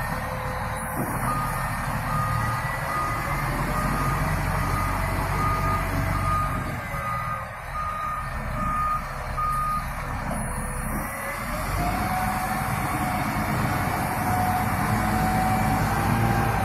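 Lonking ZL50C wheel loader manoeuvring: its reversing alarm beeps steadily, about one and a half beeps a second, over the diesel engine's running. The beeping stops about ten seconds in, and the engine note then rises.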